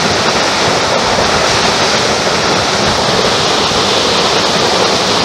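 Water discharging from a concrete arch dam's spillway and falling to the pool far below: a loud, steady rush with no break.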